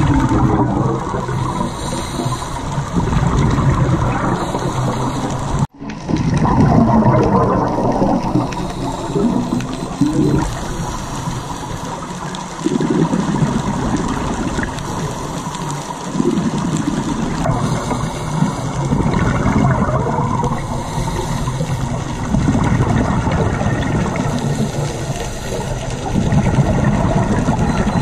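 Scuba divers' exhaled bubbles rushing from their regulators, heard muffled underwater. The gurgling swells and fades in surges every few seconds with each breath, and cuts out for a moment about six seconds in.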